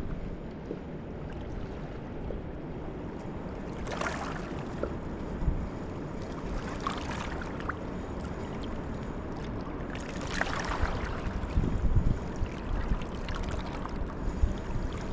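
Steady rushing of the Niagara River's fast water, with wind buffeting the microphone in low thumps that grow stronger in the second half. Brief hissing swells rise and fall a few times.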